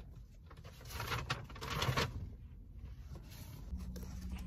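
Rustling and scraping of a phone being handled and repositioned, a few short bursts, with a faint low steady hum starting near the end.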